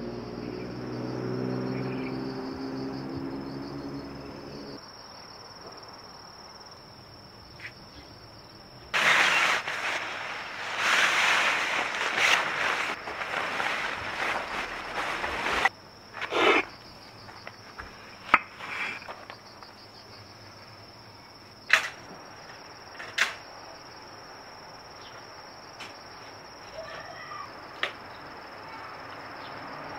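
A steady high insect trill runs throughout. From about 9 to 16 seconds a loud rustling of a plastic sack being carried, then several short sharp knocks and clanks as gear is set down.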